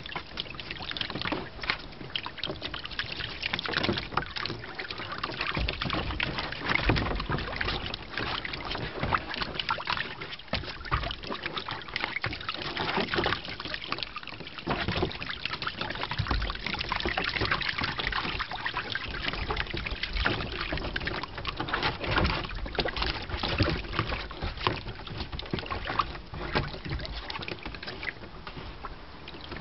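Water splashing and sloshing in a plastic kiddie pool as puppies paddle through it, a steady run of small irregular splashes and knocks.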